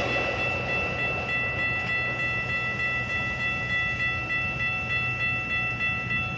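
Metra commuter train rolling past, a steady rumble of the cars with a high, steady ringing tone over it.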